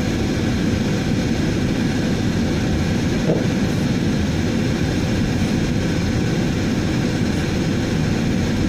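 Steady engine and road noise of a car driving slowly on a snow-covered road, heard from inside the cabin.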